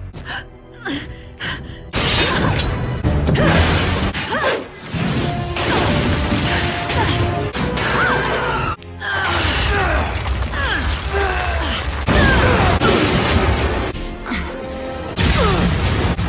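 Cartoon action-scene soundtrack: music mixed with sound effects, with a few sharp hits in the first two seconds, then a dense, loud mix with gliding tones.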